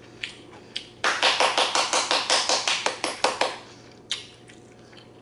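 A fast, even run of sharp taps, about eight a second, starting about a second in and lasting some two and a half seconds.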